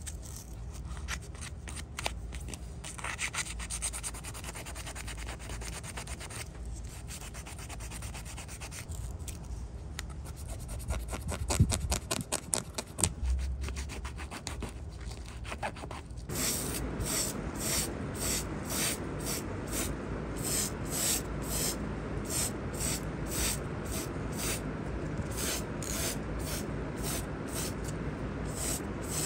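Sandpaper rubbing in quick fine strokes over a small diecast metal model-car part. About sixteen seconds in, the sound changes to a steady hiss with a regular pulse, a little under two a second, as paint is sprayed onto the part.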